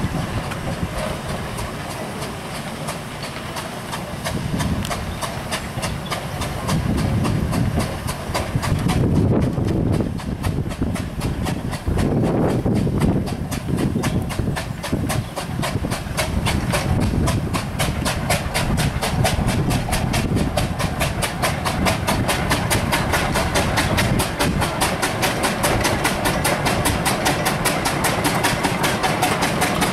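Steam road engine's exhaust chuffing in a fast, even rhythm with steam hiss, growing louder about ten seconds in as it comes up the hill.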